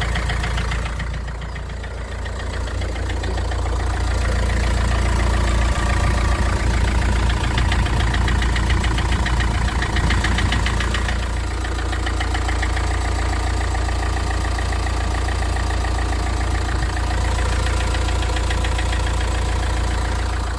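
Opel Vivaro 1.9 diesel engine running cold with a rapid, regular knock in its sound, a knock whose cause the owner cannot pin down. The running dips briefly about a second in, grows louder a few seconds later and eases slightly around the middle.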